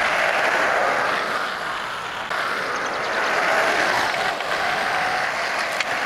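John Deere compact tractor's diesel engine running under load as its front loader carries a log, heard as a steady, noisy drone.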